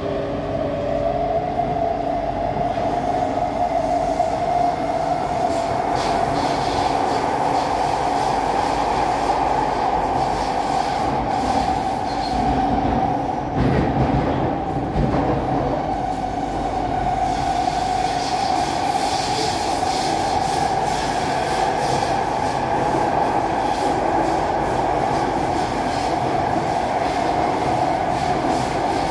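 SMRT C151A metro train heard from inside the carriage: the electric motor whine rises in pitch as the train pulls away from the platform, then holds a steady pitch at speed over the running rumble of wheels on rail.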